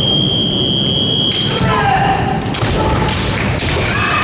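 A steady, high electronic tone held for just over a second at the start, over heavy thuds in a kendo hall; then a voice shouts.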